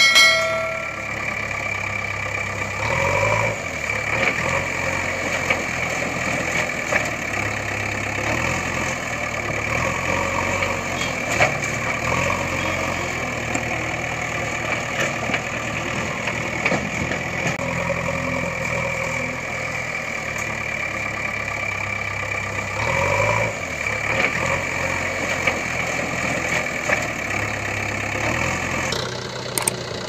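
Steady vehicle engine idling sound effect with a light knock, laid over the pictures of unpowered plastic toy vehicles. A bell-like ding sounds at the start and again at the end.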